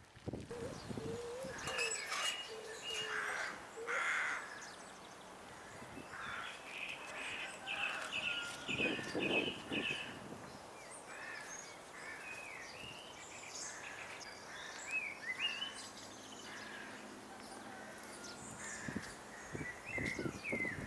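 Several birds calling and chirping, with a run of quick repeated notes about seven seconds in.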